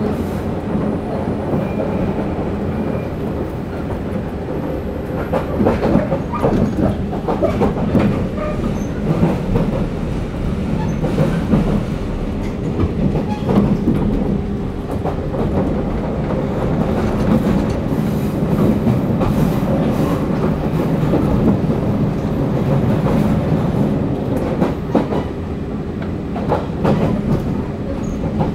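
JR 189-series electric train heard from inside the passenger car while running: a steady rumble of wheels and bogies on the track. Clickety-clack from the wheels passing over rail joints comes in several short runs.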